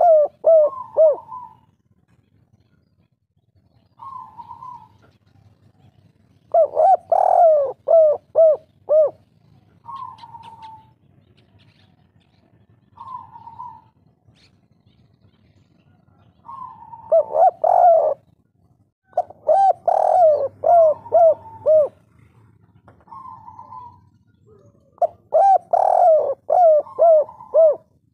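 Spotted dove cooing in the 'kuk 3' song style used as a lure to make other doves answer: five phrases of several quick, arching coos, with single short coos in the pauses between them.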